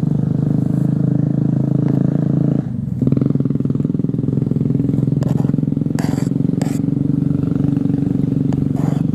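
A steady, loud, low engine drone that drops out briefly a little under three seconds in. A few light clicks around the middle, like a plastic spoon tapping a plastic cutting board.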